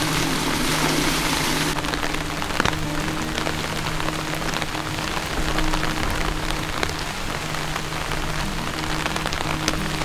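Heavy rain falling, with many individual drops striking close by, over a low steady hum.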